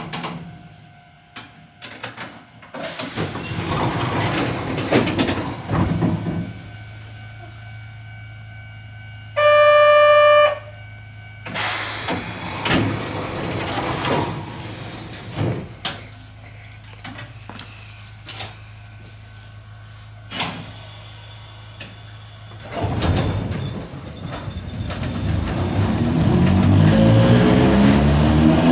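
Narrow-gauge electric train standing with a steady low hum and a few knocks. About ten seconds in comes a loud one-second beep. Near the end, the motor whine climbs in pitch as the train pulls away and gathers speed.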